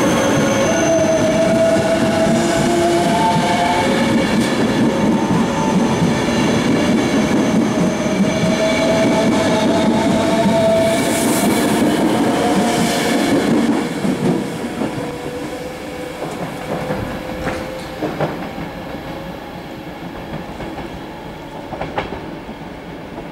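ETR 470 Pendolino tilting electric train pulling out of a station and passing close by, its wheels running over the rails with wavering squeal tones. About fourteen seconds in, the last car goes by and the sound drops off as the train moves away, with a few sharp clacks over the track near the end.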